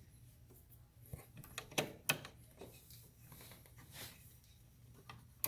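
A few light clicks and scrapes, spaced a second or two apart, from hands and tools working on a stair lift's mechanism.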